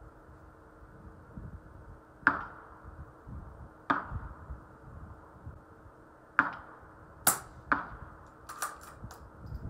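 Suppressed CZ 457 .22 LR bolt-action rifle firing at steel: a run of sharp cracks, the first about two seconds in and the rest every second or two, with quicker smaller clicks near the end.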